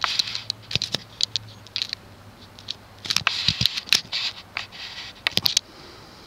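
Handling noise from the clear plexiglass blades of a ceiling fan: irregular clicks, scratches and scrapes in short flurries, with bunches about three seconds in and about five and a half seconds in.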